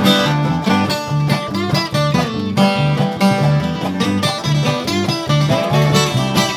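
Live country-bluegrass band playing an instrumental break with no singing: resonator guitar, acoustic guitar, bass guitar and harmonica over a bouncing, even bass line.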